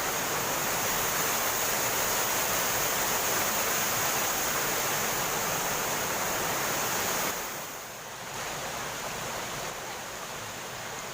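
Steady rush of a waterfall's falling water. About seven seconds in it drops sharply in level and stays quieter.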